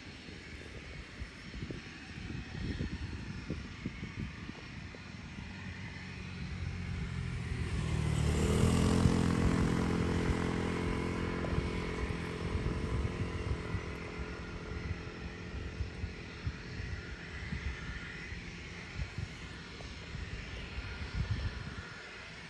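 Embraer Phenom 300 business jet's twin turbofan engines spooling up, loudest about eight seconds in, then fading slowly as the jet moves away down the runway. Wind buffets the microphone throughout.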